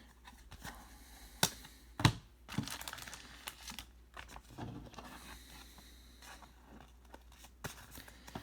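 Trading cards and a pack wrapper being handled: crinkling and tearing of the wrapper, with scattered clicks as cards are slid and tapped, and two sharp snaps about one and a half and two seconds in.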